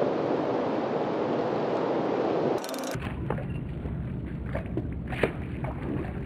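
A steady rushing noise, then an abrupt change about two and a half seconds in to a low wind rumble on the microphone. Over the rumble come several small, sharp splashes of shad breaking the river surface, the sharpest about five seconds in.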